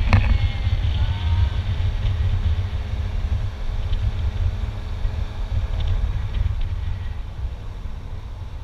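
Steady low rumble of wind buffeting the microphone and road noise while riding in the open bed of a moving pickup truck, with a short knock right at the start.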